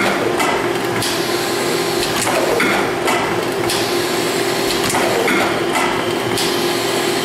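Rotary cup lidding machine running. A steady hum sits under repeating clacks and bursts of air hiss from its pneumatic cylinders. The pattern repeats about every two and a half to three seconds as the machine cycles through placing lids on cups.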